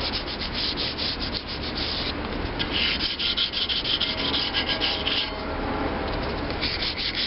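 Sandpaper rubbed by hand over primer on a steel part, quick short strokes several a second. In the middle the strokes run together into a steadier scratching for a couple of seconds, then break into separate strokes again.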